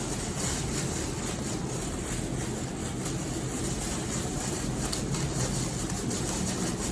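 Steady background noise with a low hum, even throughout, with no distinct knocks or voices.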